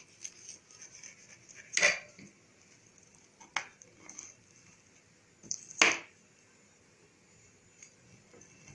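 Knife cutting through crisp oven-baked roqaq pastry layers in the baking tray: a few separate sharp crunches, the loudest about two seconds in and near six seconds in. The crisp crackle shows the sheets have baked dry and flaky like phyllo.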